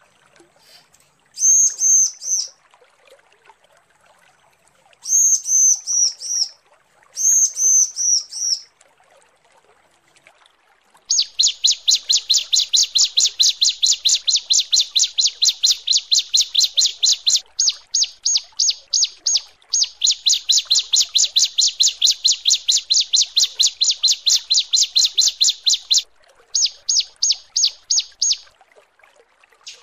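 Bar-winged prinia (ciblek) calling, in a recording presented as a female calling to males. Three short, high phrases come in the first nine seconds. Then comes a long run of rapid, evenly spaced sharp notes, lasting several seconds at a time with brief breaks.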